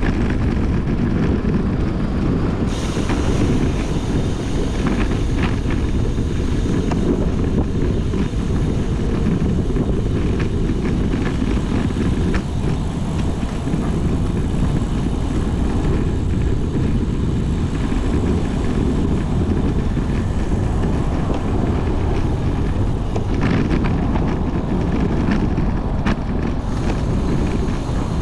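Steady wind rumble on the microphone of a camera riding along on a moving bicycle.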